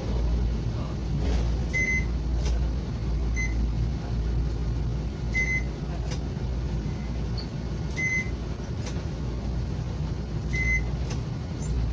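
IC fare-card readers on a Tokyu Setagaya Line 300 series tram beeping as passengers tap their cards, five short high beeps a couple of seconds apart, over the tram's steady low hum as it stands at the platform.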